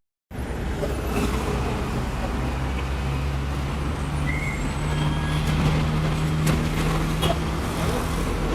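Engine of a heavy vehicle or machine running steadily, its pitch climbing a little about halfway through and holding there.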